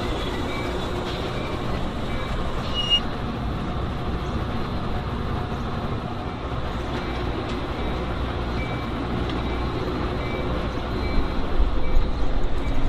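Steady rumble of a Metra bilevel commuter train moving along the tracks, with a faint short ding repeating at less than a second apart. The low rumble turns louder and uneven near the end.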